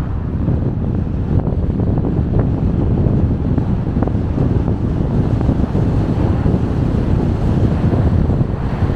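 Car driving along a road: a steady low rumble of road and wind noise, with a few faint ticks from the road surface.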